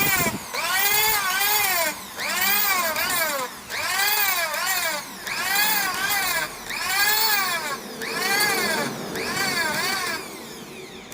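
Sanding strokes across a CNC-machined steel surface: about eight even back-and-forth passes, each a scratchy whine that rises and falls in pitch as the stroke speeds up and slows.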